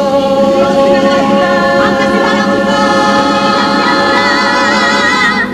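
Mixed chorus of men's and women's voices, a Cádiz carnival comparsa, holding one long sung chord, with vibrato coming in toward the end before the voices cut off together.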